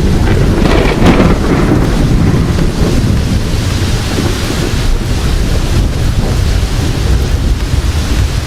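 Thunder rumbling over steady heavy rain, with a sharper crackle about a second in.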